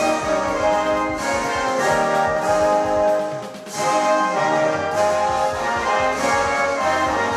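Orchestral music led by brass, slow held chords of a national anthem played for the podium. The music drops briefly a little past halfway, then the full orchestra comes back in.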